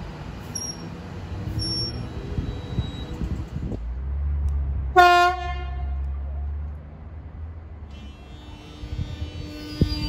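X'Trapolis electric train rumbling along the rails with a few brief wheel squeals, then a single horn blast of about a second and a half, about five seconds in. Near the end the traction motors' whine climbs in pitch as the train gathers speed.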